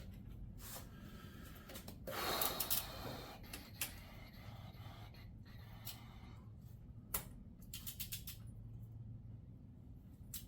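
Scattered light metal clicks and rattles of a socket and click-type torque wrench being fitted to and worked on a small-block Chevy cylinder head bolt, with a short rustling scrape about two seconds in.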